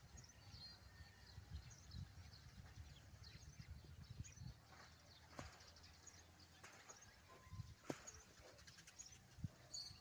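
Faint outdoor ambience: scattered small-bird chirps over a low, uneven rumble, with a couple of sharp clicks about five and a half and eight seconds in.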